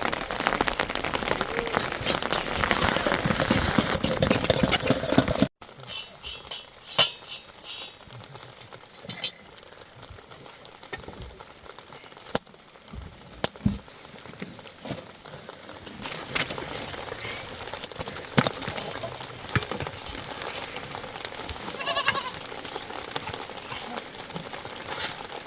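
Heavy rain mixed with hail beating on a surface, cutting off abruptly about five seconds in. Then a quieter stretch with livestock bleating a few times, scattered small clicks and drips, and a light rain hiss that thickens again later on.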